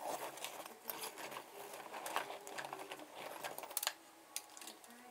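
Hair clippers being handled: irregular plastic clicks and rattles as a clip-on guard is fitted.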